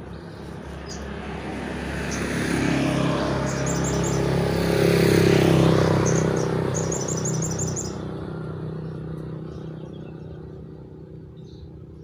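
A motor vehicle passes by: its engine grows louder to a peak about halfway through, then fades away. Short, rapid bird trills sound over it around the middle.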